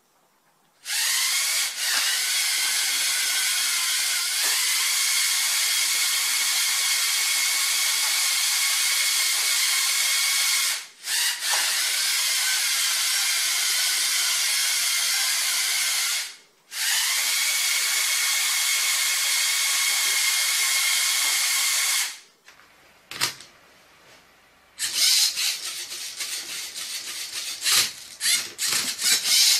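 LEGO wheelchair's electric motors and gears whirring loudly and steadily, cutting out briefly twice. Near the end, a LEGO Mindstorms NXT Rubik's Cube solver's motors and plastic parts whirring and clicking in short bursts as it turns the cube.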